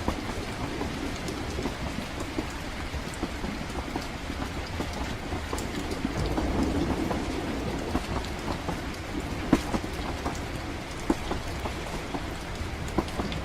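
Steady rumble of a passenger train carriage in motion mixed with falling rain, with scattered sharp clicks and knocks. The rumble swells about halfway through.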